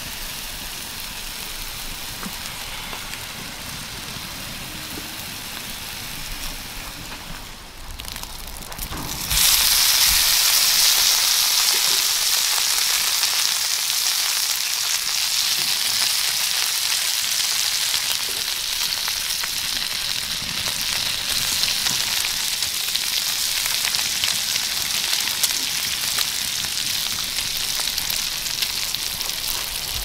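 Food sizzling in a hot frying pan: a softer hiss at first, then a sudden, much louder sizzle about nine seconds in that keeps up steadily, as when food goes into the hot pan.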